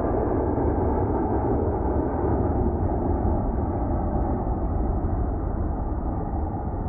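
Steady low roar of aircraft engine noise, even throughout with no distinct events.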